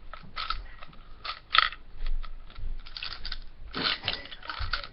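Mini gumball machine's knob being turned: a run of irregular ratcheting clicks, coming thicker about three to four seconds in.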